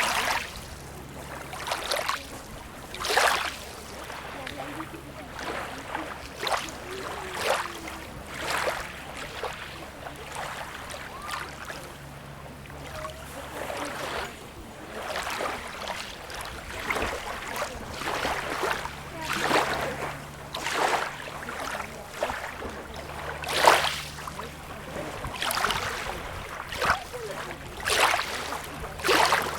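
Small waves lapping and splashing at the water's edge in quick, irregular slaps about every second or two, over a steady low rumble.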